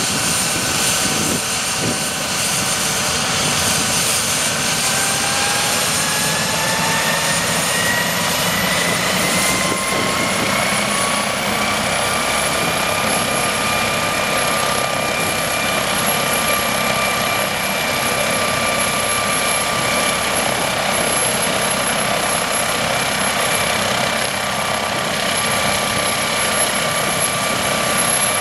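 MD 902 Explorer twin-turbine helicopter running on the ground with its main rotor turning: a steady turbine whine over rotor noise. From about four seconds in, the whine rises in pitch for several seconds and then holds steady as the turbines spool up.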